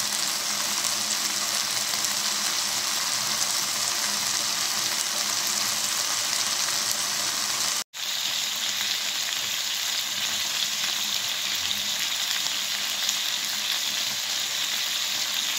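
Chicken pieces, and after a cut chicken with cubes of green papaya, sizzling steadily in hot oil as they are sautéed in a pan. The sound cuts out for an instant about halfway.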